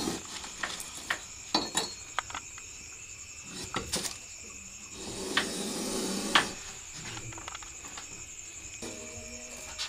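Metal snake tongs and hook clicking and knocking against a shelf and bamboo pole as a large cobra is drawn off the shelf: a dozen or so scattered sharp knocks.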